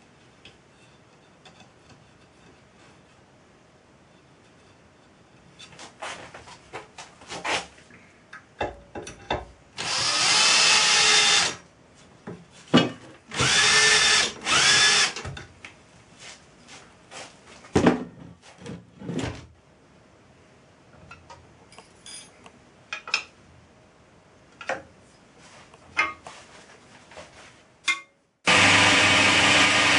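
Cordless drill run in three short bursts drilling into aluminium angle, its whine rising and falling, between scattered knocks of the metal being handled. Near the end a milling machine's spindle starts and runs steadily.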